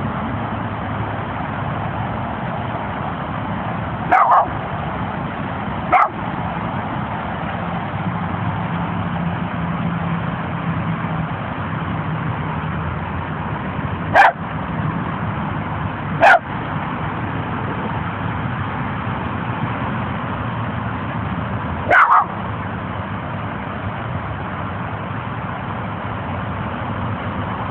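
Small Jack Russell terrier–Chihuahua mix dog barking: five short, sharp barks spaced several seconds apart, over a steady background hum.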